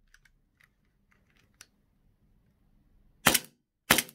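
Tactical Tomato 2011 STI TTI gas gel blaster pistol firing two sharp shots about two-thirds of a second apart, near the end. Before them there are only a few faint clicks.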